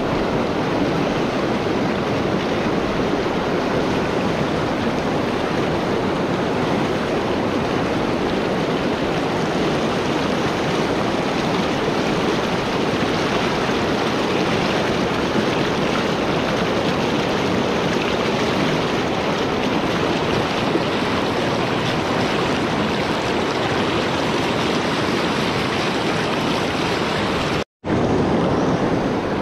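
Fast, shallow river water rushing over a rocky riffle, a steady wash and splash of current. It cuts out for an instant near the end.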